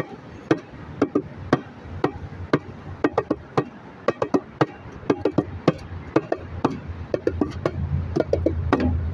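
Hand-played bongos, sharp slaps and taps in a loose, uneven rhythm of a few strikes a second. A low rumble grows under the strikes in the second half.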